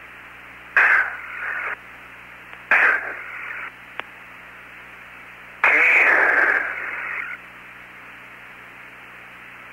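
Apollo 17 air-to-ground radio link between spoken words: a steady narrow-band hiss with a low hum, broken by three sudden bursts of rushing noise as the suit radios key open, the longest lasting about a second and a half near the middle, and one sharp click about four seconds in.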